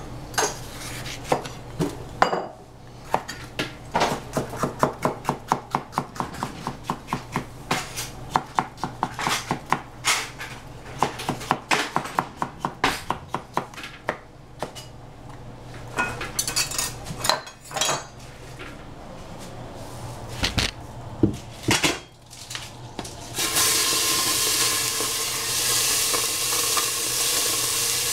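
Kitchen clatter with a long run of quick, even knife strikes on a cutting board, about three a second, as vegetables are chopped. Near the end a loud, steady sizzle starts suddenly, as food goes into hot oil in a pan.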